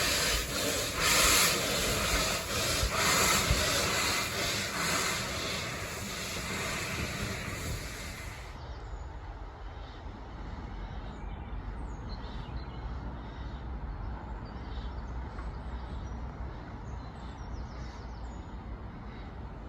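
Steam locomotive hissing loudly, its exhaust surging slowly about every two seconds as it works. About eight seconds in the sound cuts abruptly to a quieter low rumble with birds chirping.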